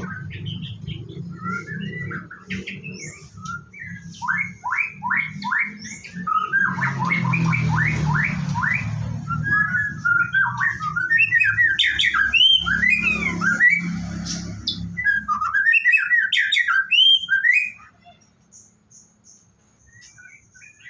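White-rumped shama (murai batu) singing a long, varied run of quick whistled and chattering phrases, over a steady low hum. The song stops about three-quarters of the way through.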